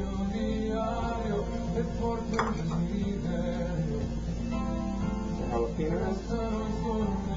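Background music: a song with acoustic guitar.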